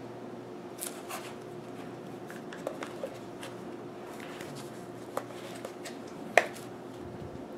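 Handling noise from 3M Peltor Sport Ultimate plastic earmuffs: scattered light clicks and rustles as the earcups are turned and the cushions squeezed, with one sharper click about six seconds in, over a faint steady hum.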